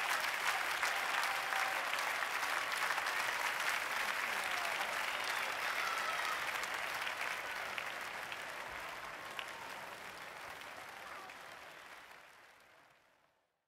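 Large concert audience applauding, dense clapping, which fades away gradually over the last several seconds until it dies to silence near the end.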